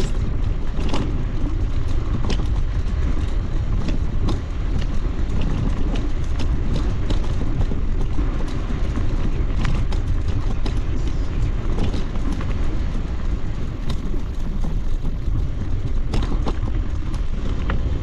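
Steady wind rumble on the microphone and tyre noise of an electric bicycle riding along a tiled paving path, with scattered light clicks.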